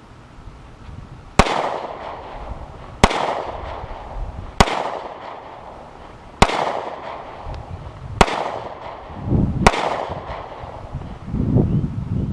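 Six shots from a Ruger LC9S 9mm pocket pistol, fired at a steady pace about one and a half to two seconds apart. Each is a sharp crack with a short ringing tail.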